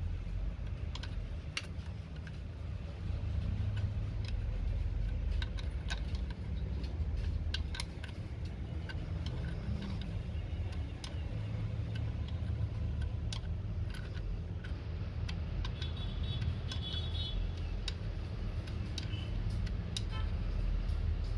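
Scattered light metallic clicks and taps of a small breather fitting, washer and nut being handled and turned by hand, over a steady low rumble.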